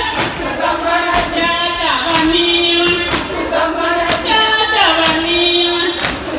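A group of women singing a Shilluk dance song together, in phrases that slide down in pitch at their ends, over a sharp percussive beat about once a second.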